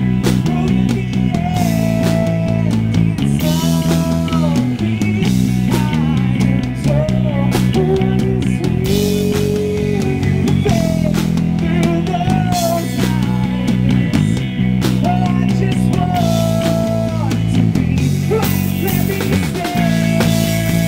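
Live rock band: a male lead singer sings over electric guitar and a Gretsch drum kit, the melody moving in long held notes.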